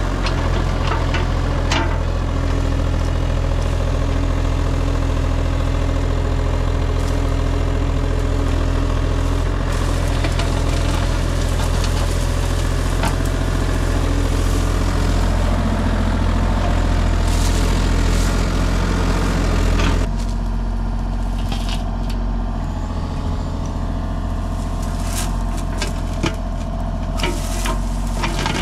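Kubota KX033-4 mini excavator's diesel engine running steadily while the bucket works through briars and brush. About two-thirds of the way in, the engine becomes quieter and more distant, and sharp snapping and crackling of brush and twigs comes through.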